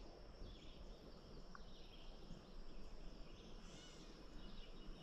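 Faint outdoor ambience: birds chirping now and then over a steady, high insect drone.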